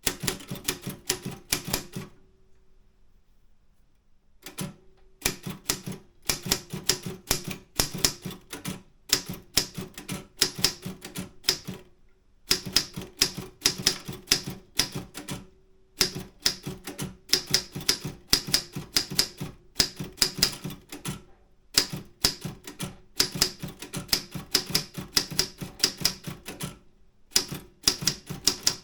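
Optima M10 manual typewriter being typed on: quick runs of sharp keystrokes, broken by short pauses, the longest of about two seconds near the start.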